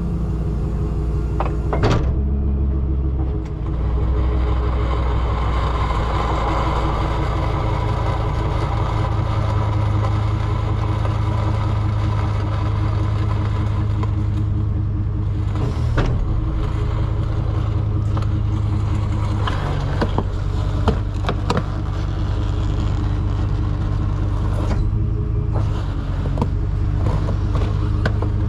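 Tow truck engine running steadily as the truck reverses with its wheel-lift out, with a few sharp metallic clunks from the rig about halfway through and again a few seconds later.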